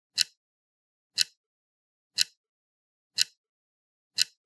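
Clock ticking once a second: five short, evenly spaced ticks with silence between them.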